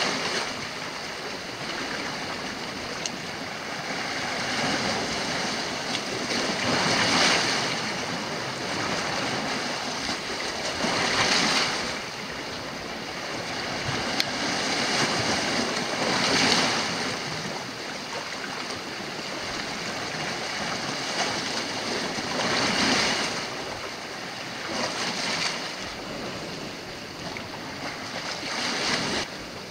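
Sea waves breaking on a rocky shore: a steady rush of surf that swells and falls away every four to six seconds.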